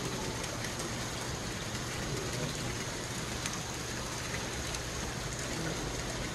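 Water falling onto a koi pond's surface: a steady hiss of splashing water with a few faint drips.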